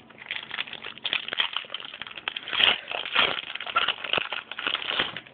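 A foil Magic: The Gathering booster pack wrapper crinkling and tearing as it is opened by hand: a dense, uneven run of crackles.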